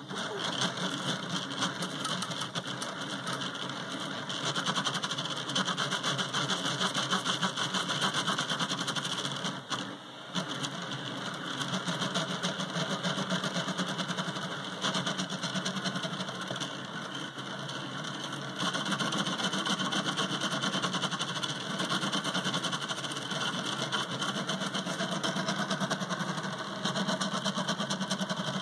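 RostockNano delta 3D printer printing at 300 mm/s, its stepper motors whirring and buzzing in fast, constantly changing bursts as the effector darts about, with the hotend cooling fan running underneath. The sound drops briefly about ten seconds in.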